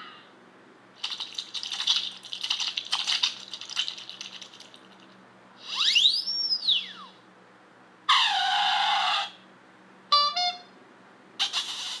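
A string of comic sound effects: bursts of rattling and scraping, then a slide whistle sweeping up and back down about halfway through, a falling squeal, and quick rattles near the end.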